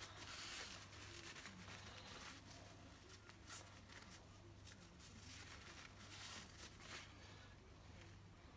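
Near silence: faint rustling and small clicks of hands wiping a plastic RC differential gear clean with paper towel, over a low steady hum.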